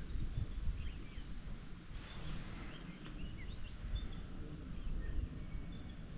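Small birds chirping and calling in short notes and quick sliding whistles, over a low, uneven rumble of wind noise.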